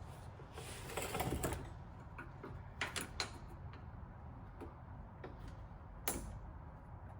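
Faint, scattered small clicks and taps of hand tools working at the plastic retaining clips on fuel-line quick disconnects, a little busier about a second in and around three seconds in, with one sharper click about six seconds in.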